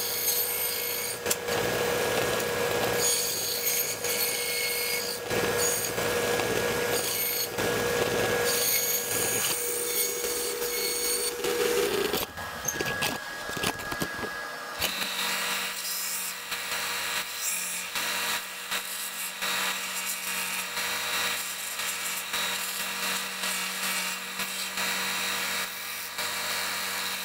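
A handheld power tool running and cutting away material, with a rasping grind that swells and fades in strokes for about twelve seconds. After a short break it runs on more steadily.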